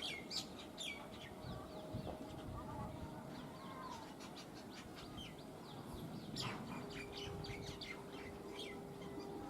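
Small birds chirping in quick repeated calls over a faint low rumble, with a faint steady hum coming and going.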